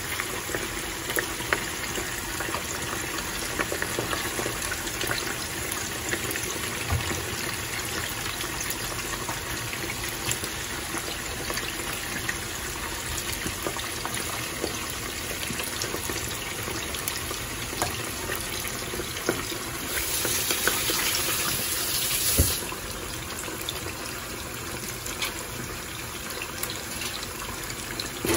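Small tamban fish deep-frying in a frying pan of hot oil: a steady bubbling sizzle. About twenty seconds in it turns louder and hissier for a couple of seconds, then drops back abruptly.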